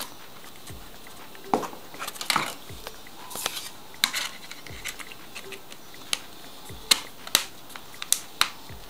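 A string of separate sharp clicks and taps of plastic: the Micromax Unite 3 smartphone's plastic body and back cover being handled and worked at.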